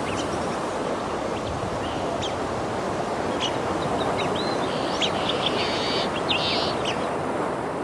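A steady rushing wash of noise, like surf, with short high bird chirps over it, thickest in the second half.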